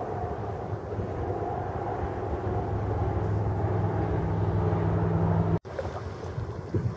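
Steady drone of a distant engine, growing louder, with wind on the microphone; it cuts off abruptly about five and a half seconds in, after which only wind rumble goes on.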